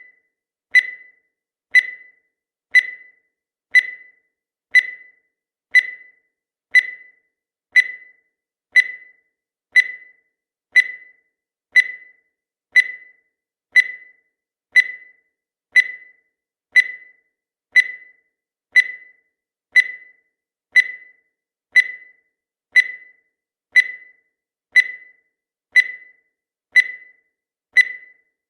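Countdown timer sound effect: a short, high-pitched electronic blip once a second, each dying away quickly, repeating evenly.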